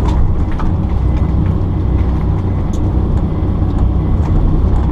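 Kobelco excavator's diesel engine running steadily at working speed, a constant low drone, with a few faint clicks and knocks over it.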